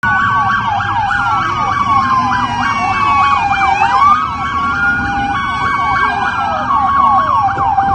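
Several police car sirens sounding at once: fast repeating yelp sweeps overlap slower rising and falling wails and a two-note hi-lo tone, over a low rumble.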